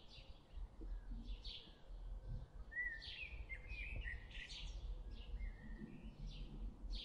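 Small birds chirping and singing faintly: a steady run of short, high notes with quick whistled slides up and down.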